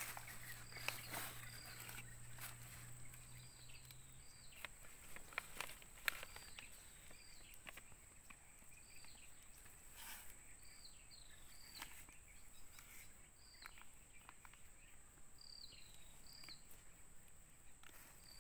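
Faint outdoor ambience: a bird giving short falling chirps, one every second or so, over a steady high-pitched hum, with a few soft clicks and rustles of hands working soil in plastic polybags. A low hum fades out about four seconds in.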